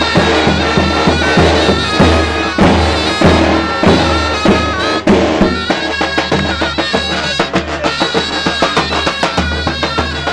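Davul and zurna playing a Turkish folk tune: the double-headed davul bass drum beats a steady, quick rhythm under the loud, reedy, held melody of the zurna shawm.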